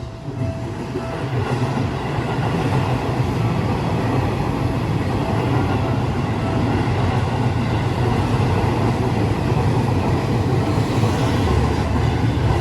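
Seibu Railway electric train passing at close range over a level crossing: a loud, steady rumble of wheels on the rails that builds in the first second or two and then holds.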